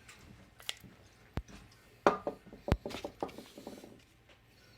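Scattered clicks and knocks of tools being handled and set against a steel plate, about half a dozen separate taps with quiet between them, while the drill is positioned for a pilot hole.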